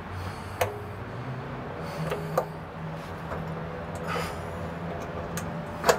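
A few sharp clicks spread over several seconds, some followed by a brief clear ringing tone, over a low steady hum.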